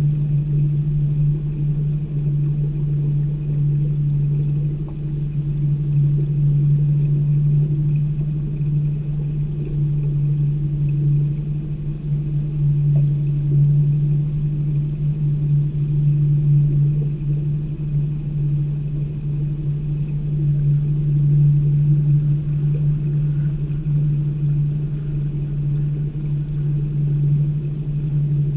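A small boat's motor running at a steady, low cruising speed, a constant low drone.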